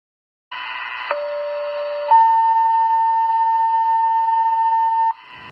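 Fire dispatch two-tone page over a radio: a short tone, then a lower steady tone for about a second, then a higher tone held for about three seconds, ending with a brief return of the first tone.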